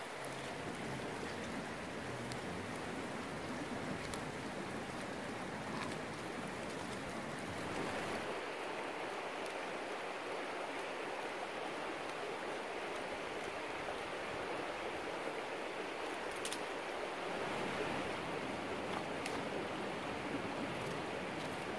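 Steady rush of the Iška river flowing over rocks, with a few scattered faint clicks.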